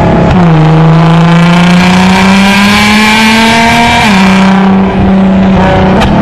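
Loud sports car engine accelerating, its pitch climbing steadily, then dropping sharply at a gear change about four seconds in and holding steady after it.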